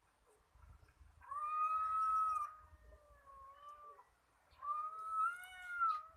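Cat yowling: two long, drawn-out, wavering cries, the second starting about halfway through. This is the threatening caterwaul of a cat fight.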